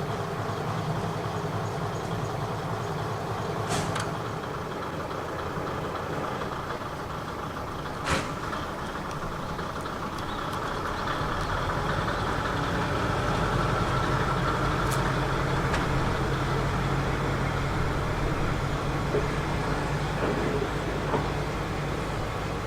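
Diesel railcar engine idling with a steady low drone, growing louder about halfway through. Two sharp clicks are heard earlier.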